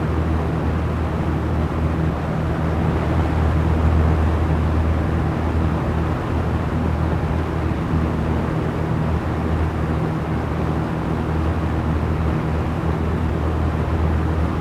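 Small electric fan running steadily: a constant low motor hum under an even rush of air.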